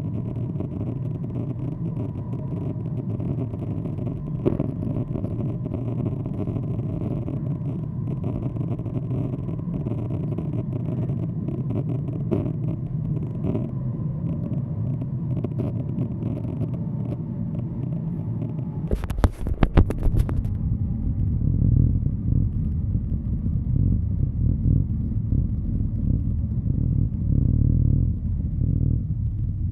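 Inside a moving ED4M electric multiple unit: a steady low rumble of wheels on rails with a faint steady hum. About two-thirds of the way through comes a burst of sharp clicks, and after it the rumble is louder and the hum is gone.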